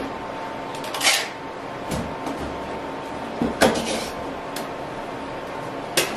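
A cardboard Priority Mail shipping box being closed by hand: flaps folded and pressed down, with a few short, sharp scrapes and knocks of cardboard about a second in, near the middle and near the end.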